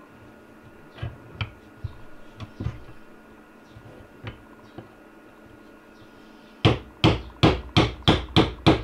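Hammer blows on a lathe cutting bit that has been sharpened and used as a chisel against the glued-on magnets of a stepper-motor rotor, to knock them off. A few light taps come first, then, about two-thirds of the way in, a quick run of loud sharp strikes, about four a second.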